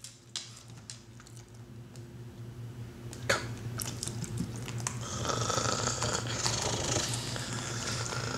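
Boston terrier breathing and licking its lips over a steady low hum, with scattered faint clicks and one sharper click about three seconds in; the breathing grows louder from about five seconds in.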